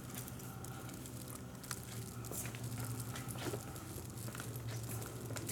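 Quiet shop room tone: a low steady hum with faint scattered clicks and rustles from handling the camera.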